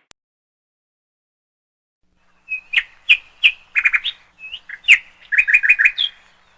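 About two and a half seconds of silence, then a bird chirping: a run of short, high chirps and quick trills for about four seconds.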